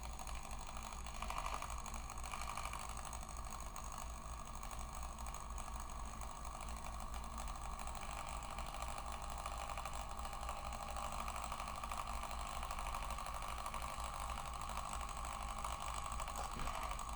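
Small electric gear motor turning a scratch-built HO-scale model railroad turntable, running steadily with a constant whine and gear chatter.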